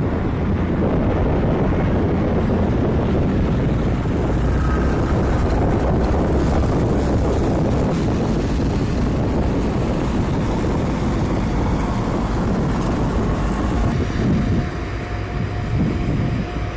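Heavy airfield snow-plow trucks running, a steady deep engine rumble that dips slightly near the end.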